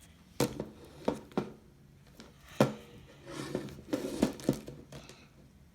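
Plastic toy figures being handled and set down: a series of light clacks and knocks, about seven in all, with some rustling in the middle.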